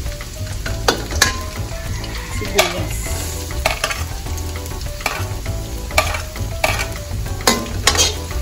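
Garlic and chopped red onion sizzling in oil in a stainless steel wok, while a metal spoon scrapes and clinks against the pan about a dozen times as they are stirred.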